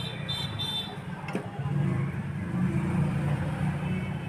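A low, steady engine rumble that swells in the middle, with three short high beeps in the first second and a single sharp click about a second and a half in.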